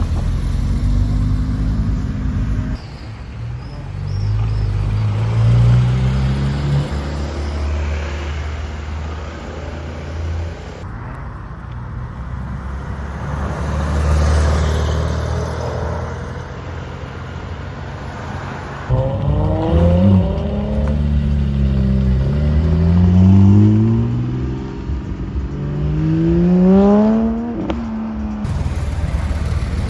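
Porsche sports car engines accelerating hard, the pitch rising steeply several times and dropping back at each upshift.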